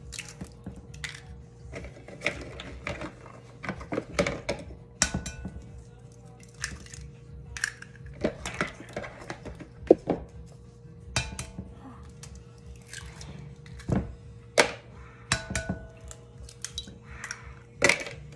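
Eggs being cracked one after another on the rim of a glass batter bowl: a string of sharp taps and clicks of shell on glass, with a faint steady hum underneath.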